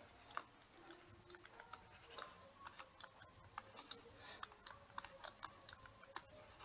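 Faint, irregular clicks and taps of a stylus writing on a tablet screen.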